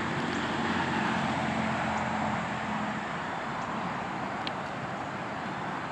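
Steady outdoor background noise with a faint low hum through roughly the first half, which fades away. A few faint ticks are also heard.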